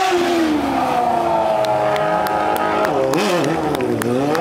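Stunt motorcycle engine revving hard: the pitch eases down, holds, wavers quickly about three seconds in, dips, then climbs again near the end, with a few sharp clicks over it.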